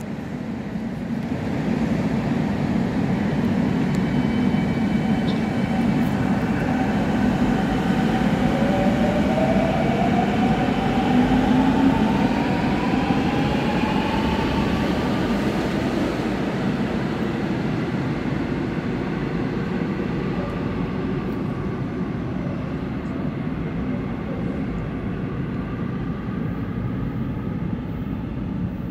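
Daejeon Subway Line 1 train pulling out of the station and accelerating away. Its traction motors give a rising whine over the rumble of the wheels; the sound builds over the first seconds, is loudest about halfway through, then slowly fades as the train goes into the tunnel.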